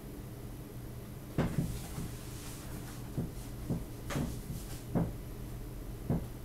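Steady low hum with about seven short, sharp clicks at irregular intervals, the first about a second and a half in.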